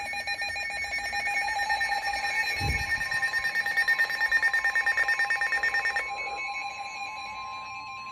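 Several weather alert radios sounding their alarms at once: shrill, overlapping electronic tones, with fast beeping in the middle. Near the end a single steady tone comes in, in the manner of a NOAA weather radio's warning tone ahead of the next alert.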